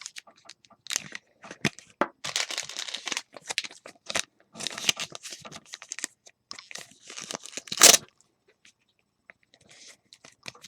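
Baseball card pack wrapper tearing and crinkling as cards are handled, in a run of short rustles and clicks with the loudest rustle about eight seconds in.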